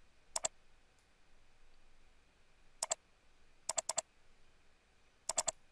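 Computer mouse button clicking in four quick groups of two to four clicks, double-clicking to open folders one after another.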